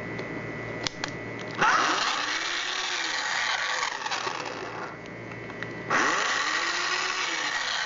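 A small power tool's motor runs in two bursts. Each burst starts abruptly, the first about one and a half seconds in and the second near the end, with the motor's pitch rising and then falling.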